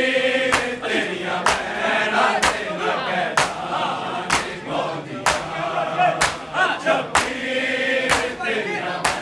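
A crowd of men beating their chests in unison (matam), one sharp slap about every second, while male voices chant a noha together.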